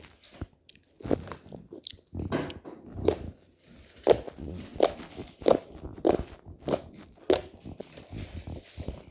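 White clay slime being pressed and worked by hand, giving a run of wet, sticky pops and crackles. From about four seconds in they settle into a regular beat of roughly one and a half a second.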